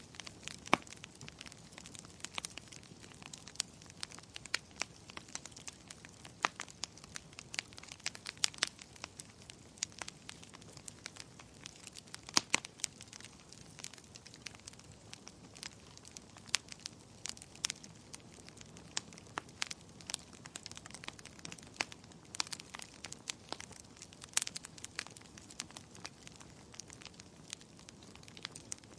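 Wood fire crackling in a fireplace: irregular sharp pops and snaps over a soft steady hiss, with a louder pop about twelve seconds in.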